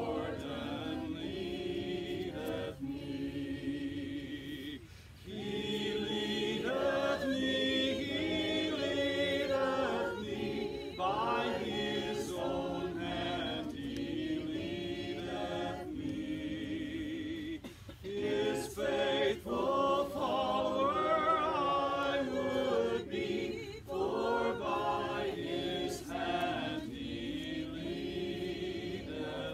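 A group of voices singing a hymn together, unaccompanied, in long held notes with short breaks between phrases.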